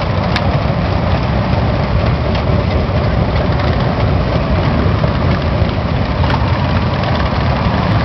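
Cruiser motorcycle engine running steadily at low speed as the bike is ridden, heard from the rider's seat.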